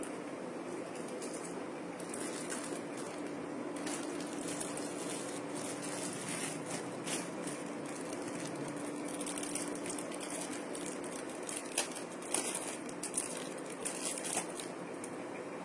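Plastic packets and wrapping crinkling and rustling as hands handle bangles packed in them, over a steady faint hiss and hum; the crinkles come thickest near the end.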